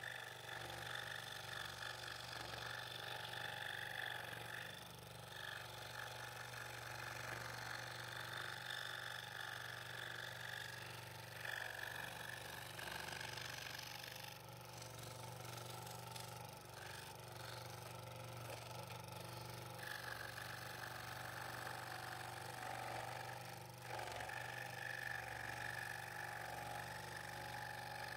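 Scroll saw running, its fine reciprocating blade cutting an internal fretwork cut through stacked wood: a steady motor hum under a higher cutting buzz that eases off for a moment several times as the work is turned, then returns.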